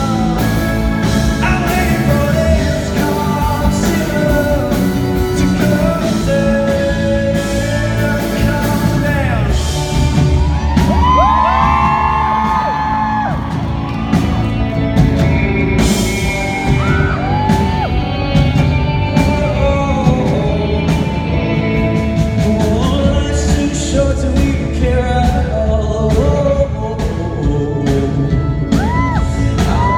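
A live rock band plays while a male singer sings, with yells and whoops from the crowd.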